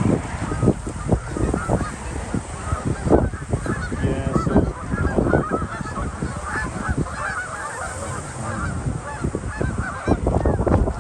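A large flock of geese honking continuously, many overlapping calls at once, with low buffeting on the microphone underneath.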